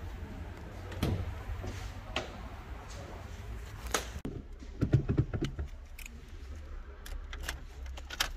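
Mini Cooper's driver door being opened by its handle and someone climbing in, heard as a series of short clicks and knocks. Near the end, keys jangle as the key goes into the ignition.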